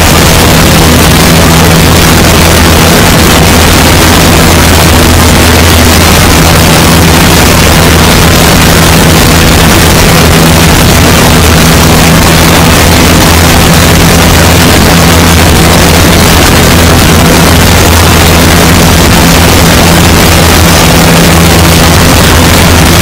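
Great Lakes biplane's piston engine and propeller droning steadily in flight, with a heavy rush of wind over the microphone.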